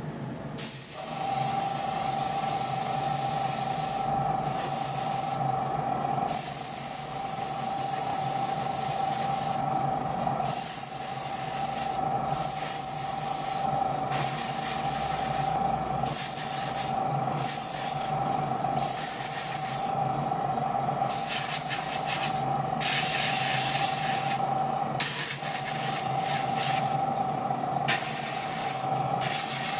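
Airbrush spraying Tamiya X-6 orange paint in short bursts, its hiss cutting in and out more than a dozen times over a steady machine hum.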